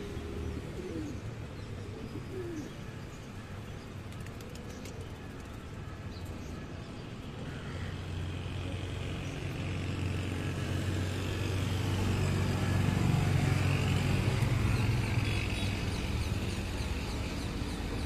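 Rock pigeons cooing close by, over a steady low rumble of city traffic that swells for a few seconds about two-thirds of the way through.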